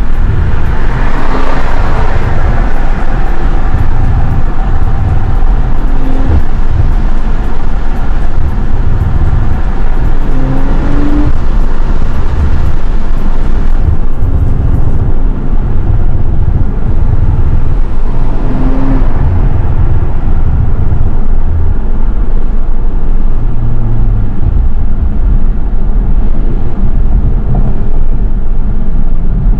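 Audi RS5 B9's twin-turbo V6 with a resonator-delete exhaust, heard from inside the cabin while driving. It makes a loud, steady low drone that swells as the revs rise near the start and again about two-thirds of the way in.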